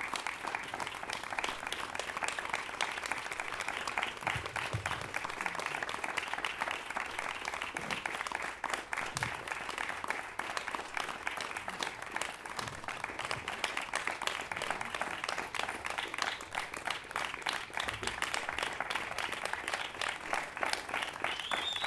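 Audience applauding steadily: many hands clapping at once, a dense, even patter of claps.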